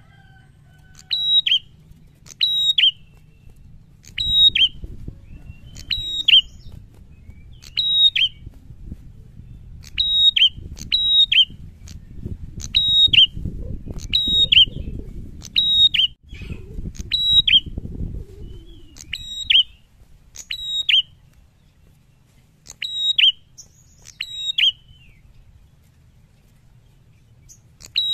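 A caged prenjak calls a loud, sharp two-note phrase over and over, about once every one and a half to two seconds, with a short pause past the middle. A low rumbling background noise rises under the calls for a stretch in the first half.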